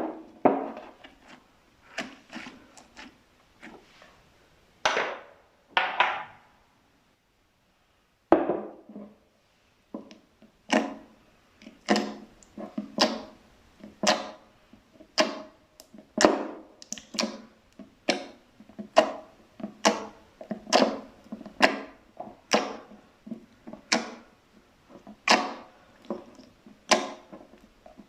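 Slime being pressed and squished by hand, making short sticky squelches and pops. They come unevenly at first, stop briefly, then come regularly at about one or two a second.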